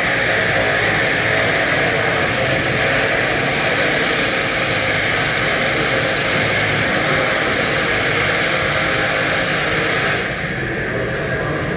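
Steady, loud rushing noise of running shop machinery, with no rhythm, cutting back about ten seconds in.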